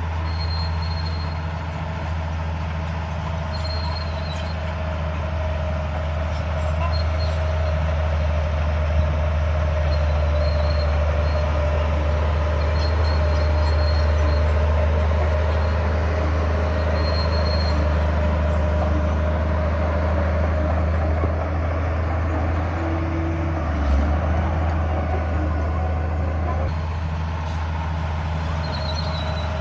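A bulldozer's heavy diesel engine running steadily: a continuous low drone that swells slightly in level, with one brief knock late on.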